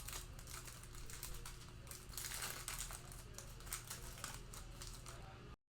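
Panini Mosaic football card pack wrapper crinkling and rustling in the hands as the next pack is opened, in irregular crackles over a faint steady hum. The sound cuts out completely for a moment near the end.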